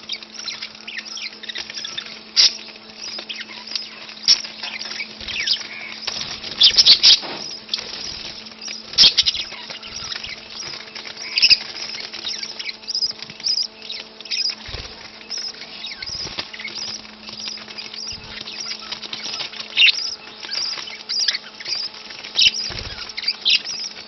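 Budgerigars chirping and pecking at seed: many short, sharp, high chirps and ticks at irregular intervals, over a steady low hum.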